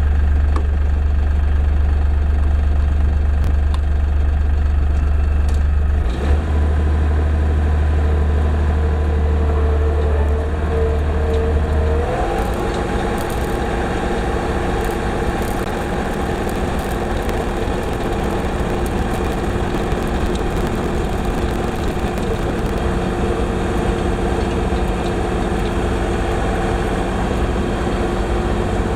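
LS MT240e compact diesel tractor engine running steadily; about twelve seconds in its pitch rises and settles at a higher steady note.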